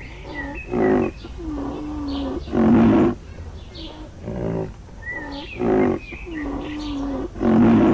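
A large zoo animal calling over and over: loud calls about two seconds apart, with long, lower, drawn-out calls in between.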